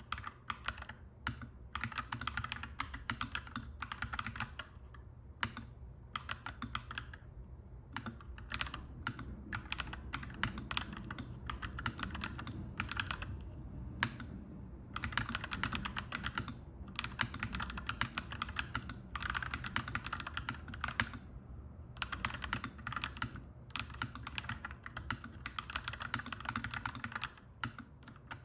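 Typing on a clacky mechanical keyboard: fast runs of keystrokes in bursts of a few seconds, broken by short pauses.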